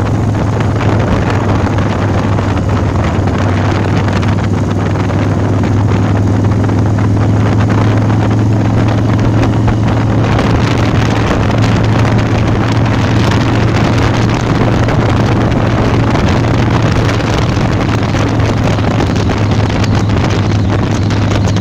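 Big Dog Mastiff chopper's S&S 117-cubic-inch V-twin running at a steady cruise while riding, with wind rushing over the handlebar-mounted microphone.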